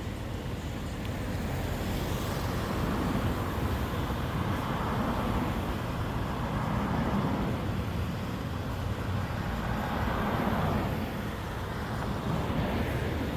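Street traffic: road vehicles passing with a steady low rumble, swelling and fading several times as they go by.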